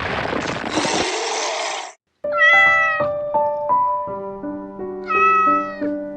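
A rushing noise for about two seconds that cuts off suddenly, then a cat meows twice, about two and a half seconds apart, over gentle piano music.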